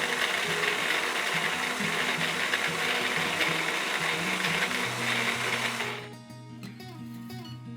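Etzinger etzMAX Filter W's 32 mm conical burrs grinding coffee beans with a steady whirring rush that stops abruptly about six seconds in, as the grind-by-weight grinder reaches its programmed dose and shuts off. Background music plays throughout.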